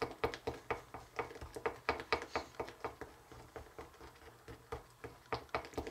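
A spoon stirring a thick mix in a small mixing bowl, making quick, uneven clicks and taps against the bowl. The tapping thins out for a couple of seconds, then picks up again near the end.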